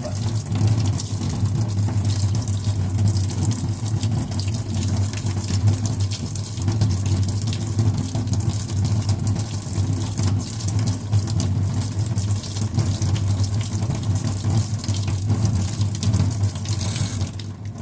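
Kitchen sink tap running steadily into the basin while the water drains away freely instead of backing up: the drain is now unclogged. A steady low hum runs under the water noise, and both ease off near the end.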